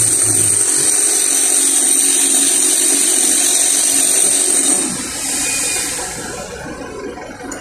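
Steady high-pitched spray hiss aimed at a motorcycle drum-brake panel and shoes to clean them. It stops about five seconds in, and a softer, shorter hiss follows.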